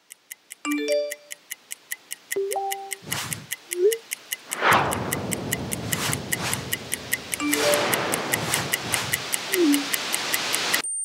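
Steady stopwatch-style ticking, about three ticks a second. Over it come short electronic phone-notification blips and a couple of whooshes, and from about five seconds in a dense music bed swells in.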